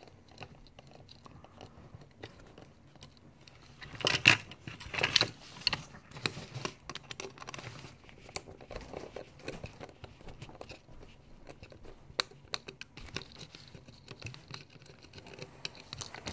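Clicks, creaks and crackles of a counterfeit camcorder's plastic and sheet-metal parts being handled and pried apart, with a cluster of sharper cracks about four to six seconds in.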